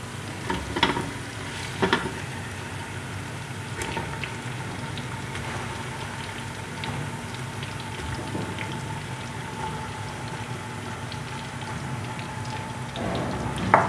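Mutton sizzling in hot oil in an aluminium pressure cooker: a steady frying crackle, broken by a few sharp knocks early on and one louder knock near the end.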